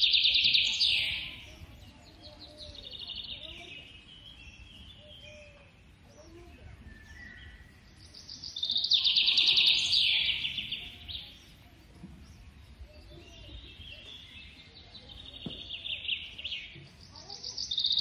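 High-pitched, rapid chirping calls in loud bursts of a second or two, each falling slightly in pitch, coming about every nine seconds, with fainter trills between.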